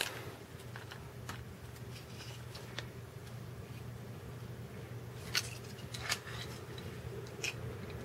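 Several scattered sharp clicks and small cracks as the plastic case of a microwave's high-power relay is pried at with pliers, the strongest about five and six seconds in, over a steady low hum.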